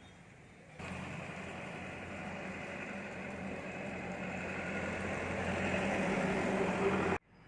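A motor vehicle's engine running, starting abruptly, growing steadily louder, and cutting off sharply near the end.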